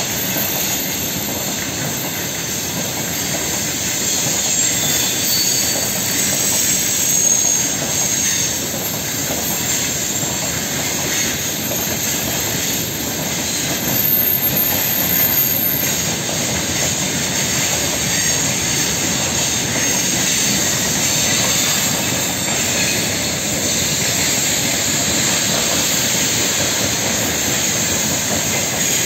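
Long freight train of gondola wagons rolling along a curved track: a steady rumble and hiss of steel wheels on rail, with faint high wheel squeal.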